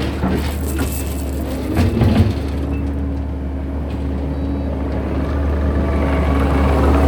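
Kubota SVL95-2s compact track loader's diesel engine running under a steady low hum, with a few metallic knocks in the first couple of seconds and the engine growing louder near the end.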